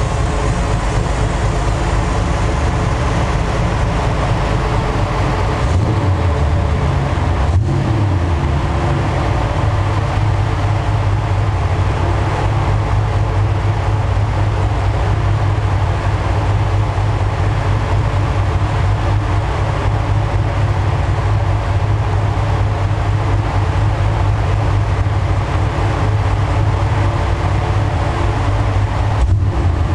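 Porsche 911 Carrera's air-cooled flat-six running on a chassis dyno through a twin-exit exhaust, its note fairly steady, with a brief break about seven seconds in and another near the end.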